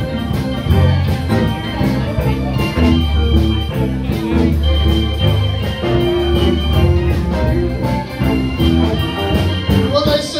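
Live band playing an instrumental break of a rock-and-roll song: drums keeping a steady beat under bass and electric guitars, with a keyboard on an organ sound holding long notes over the top.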